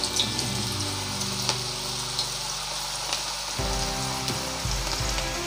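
Batter-coated cabbage shreds (cabbage pakoda) deep-frying in hot oil: a steady sizzle with a few sharp crackles.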